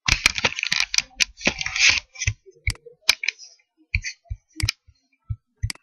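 Rustling and scraping for about two seconds, then a string of separate sharp clicks, several with a dull thump, from a computer mouse being handled and clicked at a desk.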